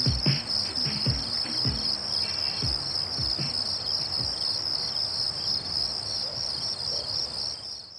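Steady high-pitched insect chirring with a fine rapid pulse, over a few low thumps that fall in pitch and die away after the first few seconds; the whole thing fades out at the very end.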